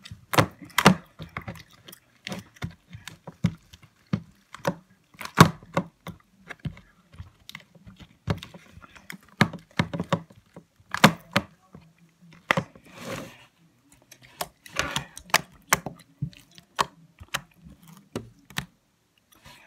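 Blue fluffy slime made of glue, shaving foam and borax, squeezed and stretched by hand, giving irregular sharp clicks and pops with a few longer squishes.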